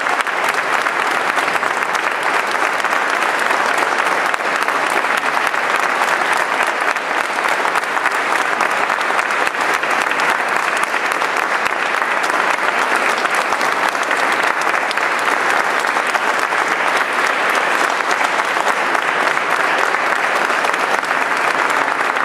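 Audience applauding steadily: dense, even clapping that holds at the same level throughout.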